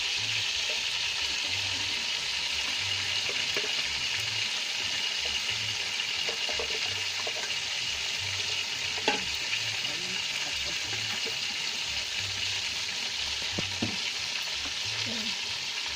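Marinated chicken pieces frying in hot oil in a wide aluminium pot, a steady sizzle, with a sharp pop about nine seconds in.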